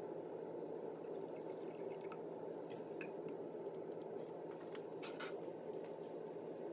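Milk poured from a carton into a stainless steel electric milk frother jug, followed by a few light clicks and knocks as the lid goes on and the frother's button is pressed. A steady low hum sits underneath throughout.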